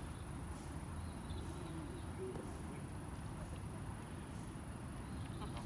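A steady high-pitched insect chorus over a low, even outdoor rumble.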